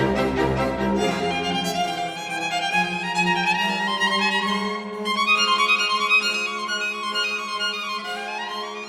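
Background music led by a fiddle, playing quick running phrases over a held low note.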